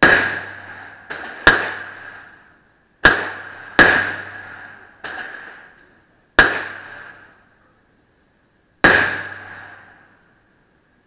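Glock 19 Gen4 9mm pistol fired six times at an uneven pace, one to two and a half seconds apart, each shot ringing out in the indoor range's echo. Two quieter shots fall in between, near one second and five seconds in.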